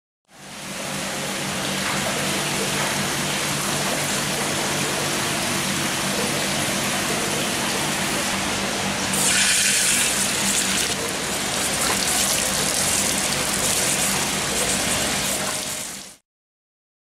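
Steady rush of running water, louder and hissier for a couple of seconds about halfway through, with a faint low hum underneath. It starts just after the opening and cuts off abruptly near the end.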